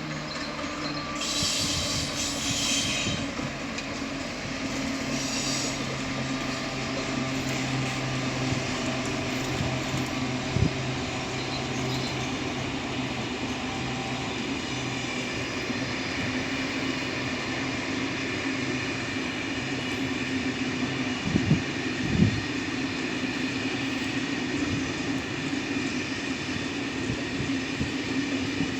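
Train running along the track: a steady rolling rumble with a low steady hum through the middle. Two short high-pitched bursts come in the first six seconds, and there are a few sharp knocks, two close together about three quarters of the way through.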